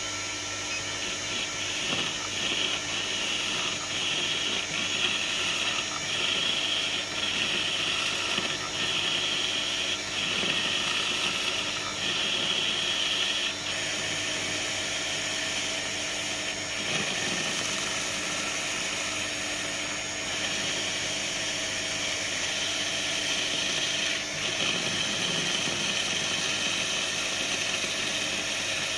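Weisan WM210 benchtop metal lathe running, a steady machine drone with several steady tones. Over it a higher hiss comes and goes in stretches of a second or so, strongest in the first half.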